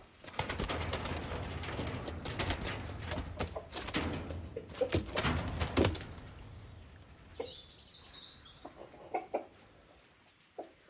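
Sparrowhawk flapping its wings hard against wire mesh in a panicked attempt to escape an enclosure: a dense run of rapid wingbeats and rattling for about six seconds. The flapping then stops, leaving only a few scattered short knocks.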